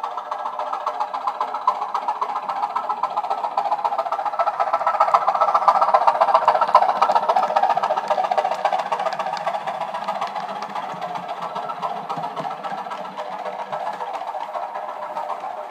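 OO-gauge model of a class 204 'Thumper' diesel-electric multiple unit running, its DCC sound decoder playing the thumping English Electric diesel engine sound through small speakers. It grows louder as the model passes close by, then fades as it runs away.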